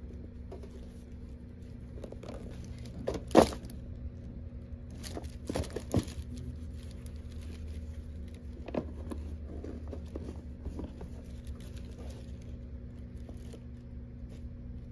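Rummaging in a desk drawer and unzipping a fabric zipper pouch of foil-wrapped candies: scattered knocks and rustles, the loudest a sharp knock about three and a half seconds in, over a steady low hum.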